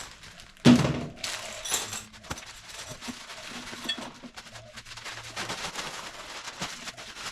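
Catch can kit parts and packaging being handled on a work surface: a single loud knock just under a second in, then light clicks and rustling.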